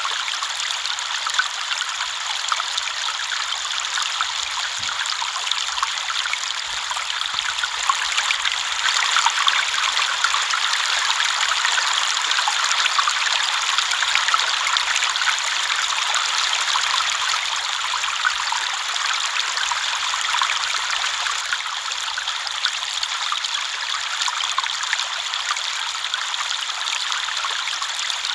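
River water flowing and splashing over stones, a steady, bright, fizzing rush with fine trickling detail.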